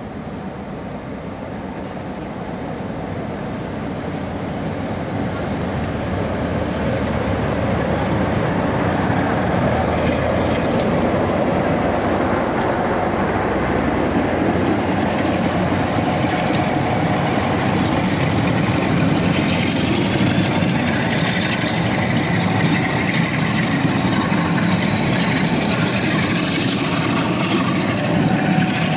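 Class 57 diesel locomotive approaching and running through a station, growing steadily louder over the first several seconds, then a rake of coaches rolling past with continuous wheel-on-rail noise. Near the end a thin whine slowly rises in pitch.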